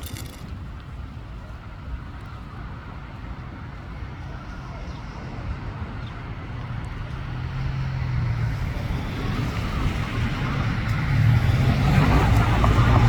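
Jet engine noise from an Airbus A321neo's CFM LEAP-1A turbofans on its climb-out, a steady rumble and hiss that grows gradually louder as the airliner approaches, with a low hum coming up strongly in the second half.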